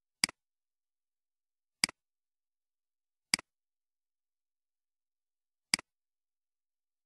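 Computer mouse button clicking four times at uneven intervals, each a sharp click with a quick second tick of the button's release.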